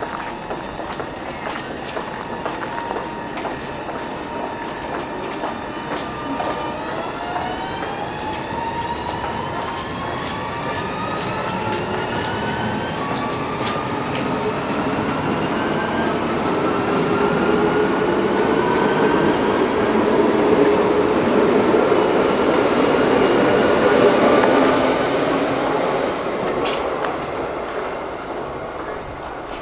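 Electric SL X60 commuter train pulling away from the platform: its traction motors give a rising whine as it accelerates. The rumble of the train builds to a peak a few seconds from the end and then fades as it leaves.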